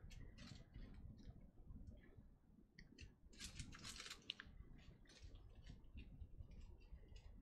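Faint crinkling and clicking of small plastic zip-lock bags of diamond-painting drills being handled and set down, with the drills shifting inside them, in a string of short, irregular bursts.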